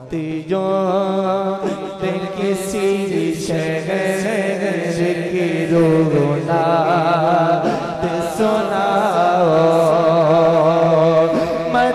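A man sings a Punjabi naat into a microphone, drawing out long held notes with a wavering vibrato. A new phrase starts about halfway through.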